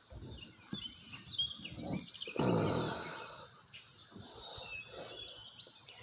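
Songbirds chirping and calling over a faint outdoor background, with a short, louder noise about two and a half seconds in.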